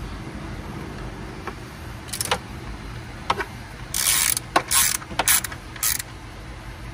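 Hand ratchet wrench clicking on bolts in short, irregular bursts, with one longer rasp about four seconds in.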